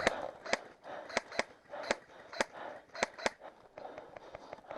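Airsoft gunfire: a string of sharp single cracks at uneven spacing, about eight in the first three and a half seconds, then fainter ones near the end.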